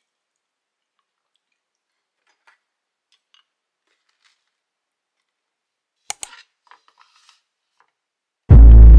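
Near silence with a few faint utensil clinks in an earthenware pot, then two sharp clicks and a few small ones about six seconds in. Loud, bass-heavy electronic music cuts in suddenly near the end.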